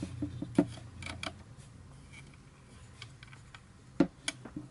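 Small plastic-and-metal clicks and knocks of a compact tripod head being handled, scattered through the first second and a half, with a sharper pair of knocks about four seconds in.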